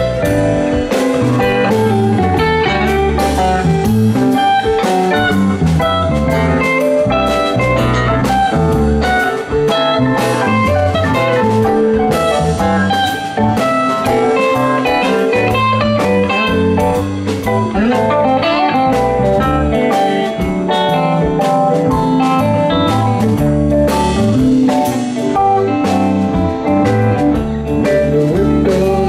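Live rock band playing an instrumental jam: electric bass and electric guitar over a drum kit, with no singing.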